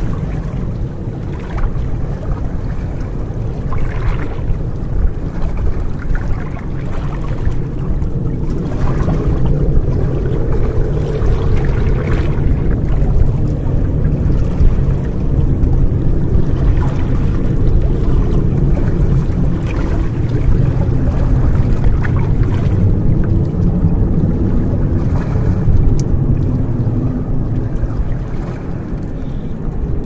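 Small sea waves lapping and splashing against shoreline rocks every few seconds, over a steady low rumble that swells through the middle and fades near the end.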